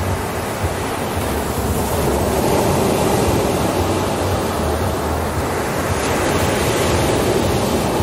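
Ocean surf breaking and washing up a sandy beach: a continuous rushing wash that swells a little about two seconds in and again near the end as the waves come in.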